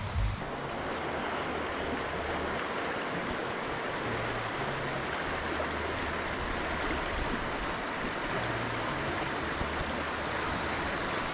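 Running water of a stream, a steady rushing hiss.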